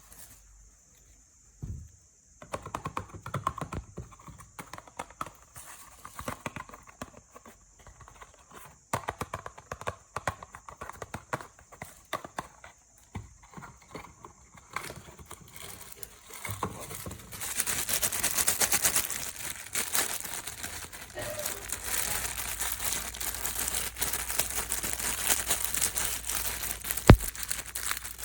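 Blind-box packaging being opened by hand: a run of small taps and clicks on cardboard and plastic, then, from about halfway, a dense crinkling and tearing of plastic wrapping. One sharp knock comes near the end.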